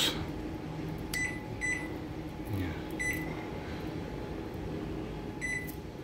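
LG microwave oven's keypad beeping four short, high beeps as its start button is pressed, and the oven does not start: its door is not fully closed.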